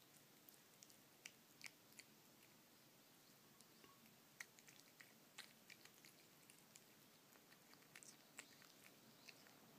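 A cat licking and chewing soft canned bonito-and-tuna wet food from a plate: faint, irregular wet smacks and small clicks, several a second.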